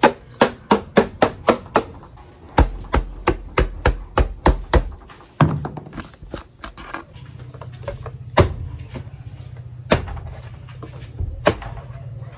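Carbon-fibre subwoofer cone struck by hand in a load test of its strength: a quick run of sharp taps at about four a second, a second run, then single harder whacks a second or more apart.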